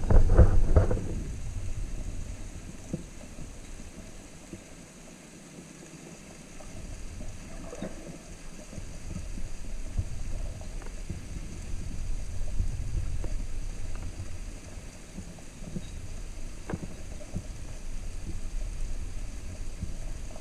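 Muffled underwater rumble of moving water heard through a submerged action camera, with a louder surge at the start and a few faint clicks.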